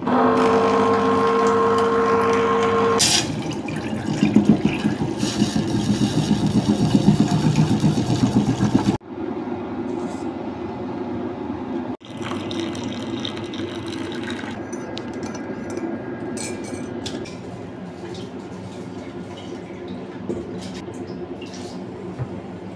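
Water pouring and splashing into an aluminium pot in a steel kitchen sink, then hot water poured into a coffee mug. Short knocks of pots and utensils being handled come later on.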